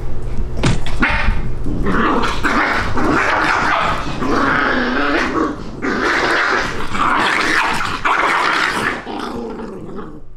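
Two Bichon Frise dogs play-fighting, growling at each other in several long rough bursts that start about two seconds in and die down near the end.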